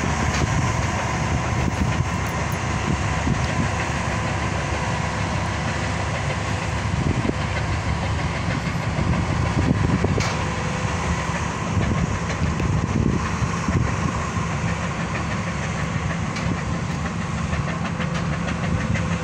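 A boat's engine running steadily, a low drone with a faint constant hum above it.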